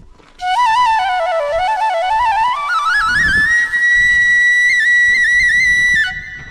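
Solo flute melody: one line that starts low, dips, climbs step by step and holds a high trilled note, stopping abruptly about six seconds in.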